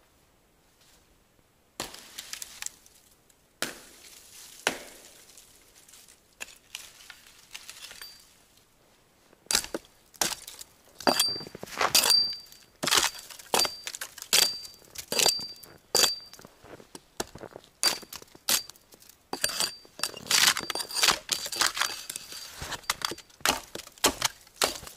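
Footsteps crunching and squeaking in deep, frozen snow. After a few scattered crunches, a steady walking rhythm of about one step a second sets in, each step with a faint high squeak, as dry snow makes in hard frost.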